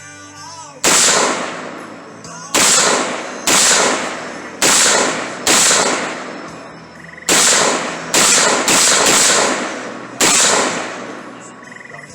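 Ten rifle shots fired in quick succession from a semi-automatic rifle, irregularly spaced half a second to nearly two seconds apart, each shot trailing off over about a second.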